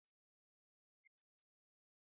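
Near silence, broken by a few faint, high-pitched clicks: one right at the start and three in quick succession about a second in.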